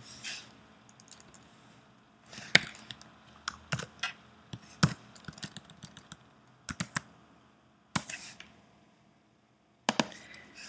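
Keystrokes on a computer keyboard, a few sharp clicks at a time with pauses between.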